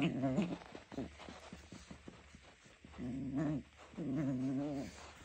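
Jack Russell terrier puppy growling in play during a tug-of-war with a sock: three wavering growls, one at the start, one about three seconds in and a longer one just after four seconds in, with soft scuffling between.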